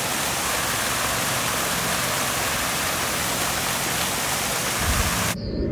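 Many fountain jets spraying and splashing steadily into a basin. A brief low thud comes just before the sound cuts off suddenly near the end.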